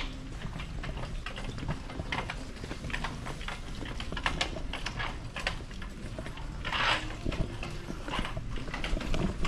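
Footsteps on a hard floor, irregular clicks about twice a second over a low steady hum, with a brief rustle about seven seconds in.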